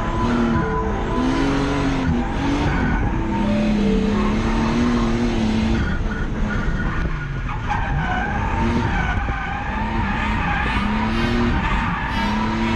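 BMW E30 drift car's engine heard from inside the cabin, its revs rising and falling again and again, over the skid and squeal of the tyres sliding.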